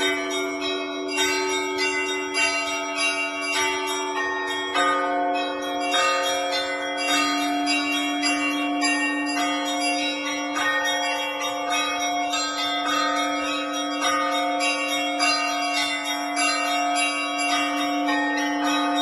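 Russian Orthodox church bells rung together in a continuous peal. Smaller, higher bells are struck in quick repeated patterns over the long, sustained ring of a larger, deeper bell.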